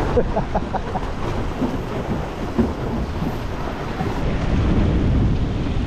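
Wind buffeting the microphone in a low rumble over the rush and splash of water along the hull of a small sailing dinghy under way in a fresh breeze.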